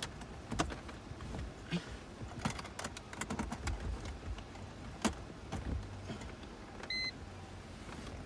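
Scattered clicks and handling noises over a low steady hum, then one short electronic beep about seven seconds in from the iCarsoft OBD2 scanner as it boots up.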